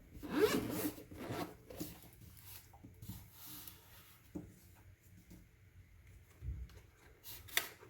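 A zippered carrying case being unzipped and opened by hand, with rubbing and rustling handling noise, a low thump about six and a half seconds in and a sharp click near the end.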